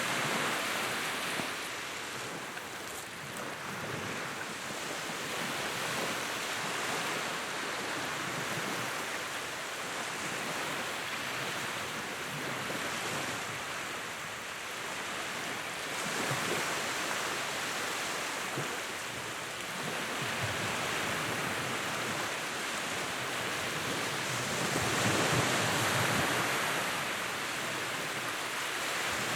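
Wood fire in a fireplace crackling steadily, a dense bed of small crackles and pops over a soft rushing sound that swells and eases every few seconds.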